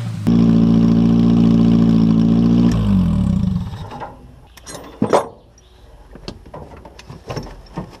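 Ford Mondeo car engine held at high revs with a steady note, then the revs fall away about three seconds in as the throttle is let off. After that come rattles and clicks, with one sharp knock around five seconds in.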